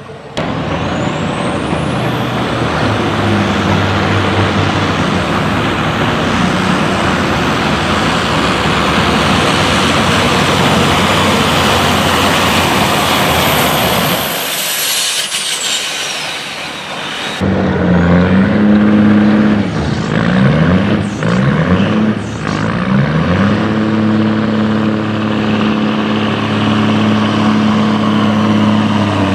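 Semi-truck diesel engines working hard pulling a sled. The first runs at full throttle with a high whistle that climbs at the start and falls away around the middle. After a break, another truck's engine revs up and down several times, then holds a steady pitch.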